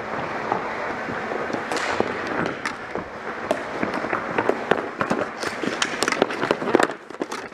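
Ball hockey play: an irregular clatter of sharp clacks from plastic-bladed sticks hitting the ball, each other and the court surface, busiest in the second half.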